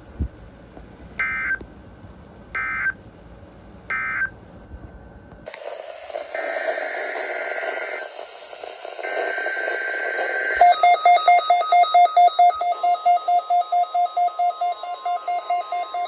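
NOAA Weather Radio alarm test: three short bursts of screechy SAME digital header tones, then weather radio receivers going off, their alarms beeping about three times a second over the steady 1050 Hz warning alarm tone.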